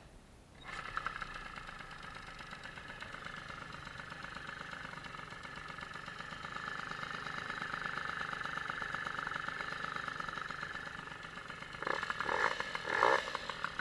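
An MBK 51 moped's tuned two-stroke engine starts about a second in and runs at a steady fast idle. Near the end it is revved in two short throttle blips.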